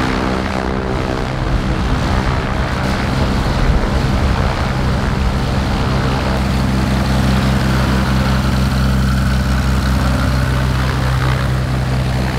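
Cessna 185 taildragger's piston engine and propeller running steadily as the plane taxies toward the listener and rolls past close by near the end.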